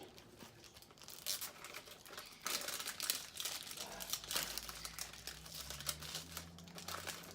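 Plastic toy packaging being crinkled and torn open by hand, a busy crackle that starts sparse and thickens about a second in.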